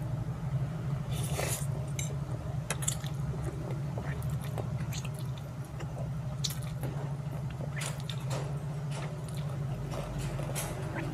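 Close-up eating sounds of fried instant noodles: slurping noodles in, chewing, and irregular wet mouth clicks, over a steady low hum.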